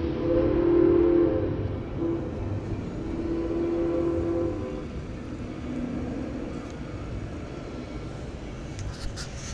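A train whistle sounds in two long blasts, a steady chord over the first half, with a low background rumble underneath.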